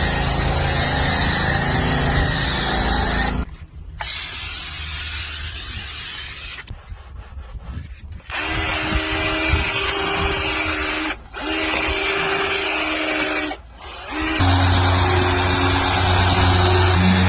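Electric detailing power tools running steadily in a string of short clips. Each clip has a steady machine hum, and the sound cuts off abruptly and restarts several times.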